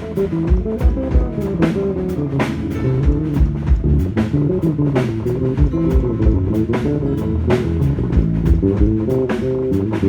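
Live band playing a steady groove: a drum kit with regular cymbal and snare hits over bass guitar and a guitar line.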